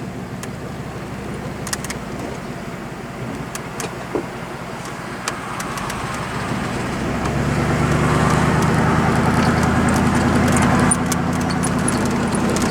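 Dixon riding mower's engine running steadily with light rattles, getting clearly louder about seven seconds in and holding there.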